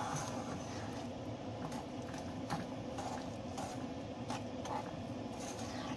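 Metal fork stirring a thick, grainy mix of sugar, corn syrup and butter in a metal saucepan, scraping and squishing against the pan in irregular strokes about twice a second, over a steady low hum.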